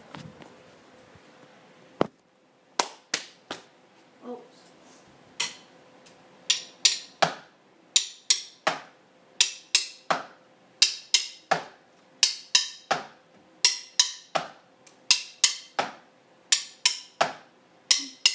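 Sharp taps on a hard surface close to the microphone. A few scattered taps come first, then from about five seconds in they settle into a steady drummed rhythm of two to three strikes a second, each with a short ringing tail.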